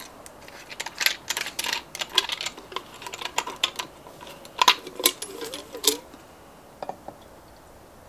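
Quick clicks and light metallic clinks of hands handling a metal fuel bottle and its cap, getting ready to refill a small brass pressure stove. The clicking stops about six seconds in.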